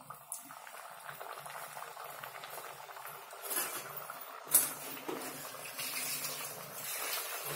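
Hot oil sizzling steadily in a steel frying pan as food fries in it, with a single sharp tap about four and a half seconds in.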